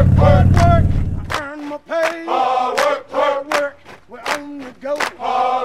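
Harley-Davidson Dyna Fat Bob's V-twin rumbling through Vance and Hines Short Shots pipes, dropping out about a second and a half in. Outro music with chanted male vocals and a beat of sharp hits plays over it and carries on after.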